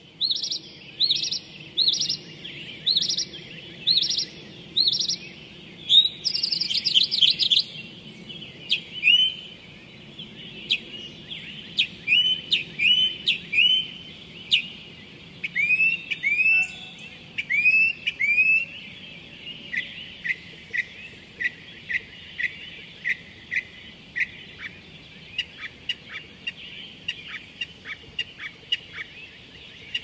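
Northern mockingbird singing: a string of different phrases, each one repeated several times before it switches. The phrases run from an evenly repeated note to a quick trill and then runs of short upswept chirps.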